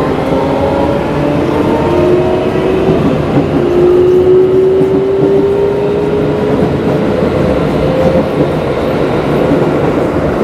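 Keikyu 1000-series train (set 1033F) accelerating: its Siemens GTO 'Doremi' traction inverter makes a motor whine that climbs in steps like a musical scale, then glides up in one long rising tone that fades about eight seconds in. Under it runs a steady rumble of wheels on rails.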